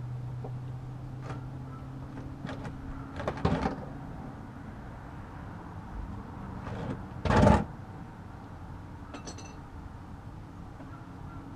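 A plastic oil drain pan is slid and scraped across a concrete floor, a short loud scrape about seven seconds in. Lighter clatters and knocks come around three seconds in, over a steady low hum that stops soon after.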